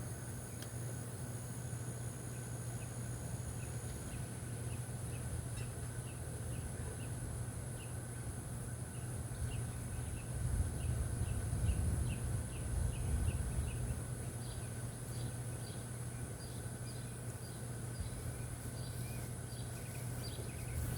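Quiet outdoor ambience: a steady low hum with a run of faint short chirps repeating about twice a second. Louder rustling and knocks come in around the middle.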